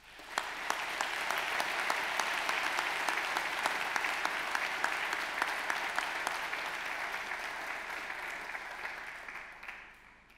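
Audience applauding. The clapping starts at once, holds steady, then dies away near the end.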